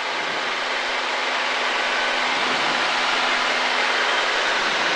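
Cabin noise of a single-engine Mooney climbing out after takeoff: the engine and airflow make a steady rushing drone with a faint low hum, slowly growing a little louder.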